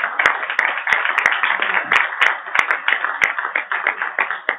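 Audience applauding: many hands clapping steadily, with sharp individual claps standing out.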